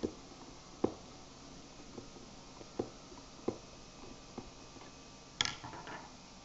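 Phillips screwdriver working a screw out of a jump starter's plastic case: light, separate clicks every second or so as the tip turns and regrips in the screw, then a brief scraping rattle about five and a half seconds in.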